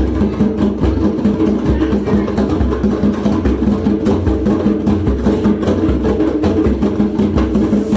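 Drumming music with a fast, steady percussive beat and sustained pitched tones underneath.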